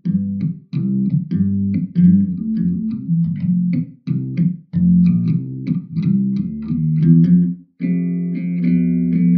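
Outro music: a bass guitar riff played in short plucked phrases with brief breaks, changing near the end to held, ringing notes.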